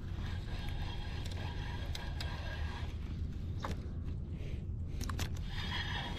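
Spinning reel being cranked, its gears whirring in two spells with a few small clicks between, over a steady low rumble of wind on the microphone.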